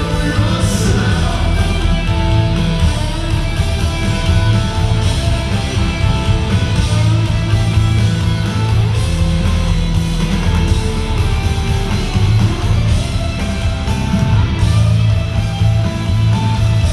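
Live rock band playing a song on electric guitars, bass and drums, loud and unbroken.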